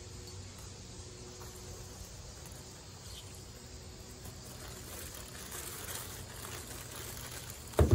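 Orange halves squeezed by hand, juice dripping and spattering into a plastic bag, over a faint outdoor background with insects buzzing. A brief loud thump comes just before the end.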